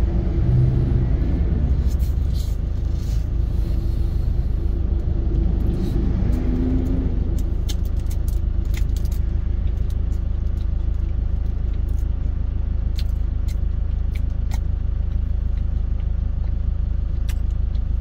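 Truck engine idling, a steady low rumble heard inside the cab, with scattered faint clicks from chewing.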